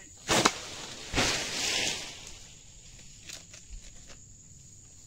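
An oil palm frond is cut with a pole-mounted harvesting sickle: a sharp double crack as the blade bites through the frond base, then about a second of rushing, leafy noise as the cut frond comes down through the fronds.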